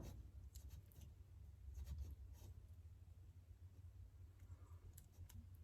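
Near silence with a low hum, broken by a few faint scratches and light clicks of Cat6 wires being handled and pressed into the plastic slots of an Ethernet jack.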